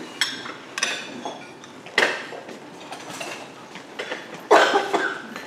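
Crockery and cutlery clinking at the tables: a handful of short, sharp clinks, the loudest about four and a half seconds in.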